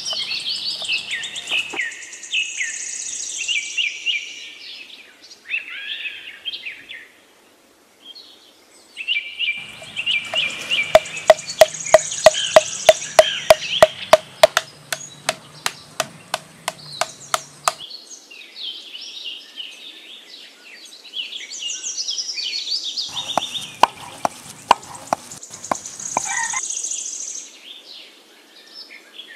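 Knife chopping ginger on a chopping board in a quick, even run of sharp chops, about four a second, for several seconds in the middle, with a few more chops later on. Birds sing and chirp throughout.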